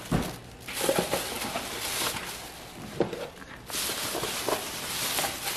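Thin plastic carrier bag rustling and crinkling as hands dig boxes out of it. The crackling comes in bouts, with a brief lull a little past halfway.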